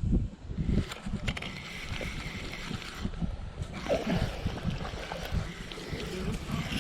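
Water splashing and sloshing at the pond's edge as a hooked smallmouth bass is brought in, with low rumbling buffets of wind on the microphone.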